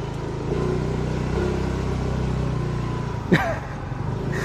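Motorcycle engine running, its low pulsing beat picking up to a steadier, faster note about half a second in. Just past three seconds there is one short, sharp squeak that falls quickly in pitch.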